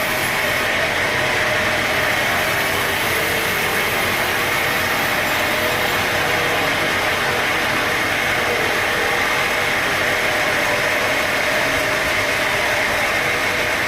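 Sawmill machinery running steadily, a constant mechanical drone with a steady high whine.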